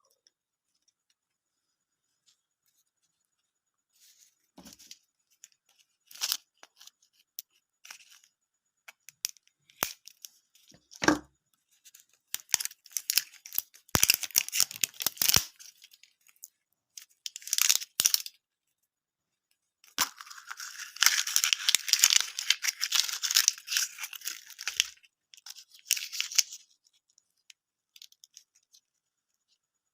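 Candy packaging being handled, torn open and crinkled. After a few quiet seconds come scattered clicks and rustles, then bursts of tearing and crinkling; the longest and loudest lasts about five seconds near the end.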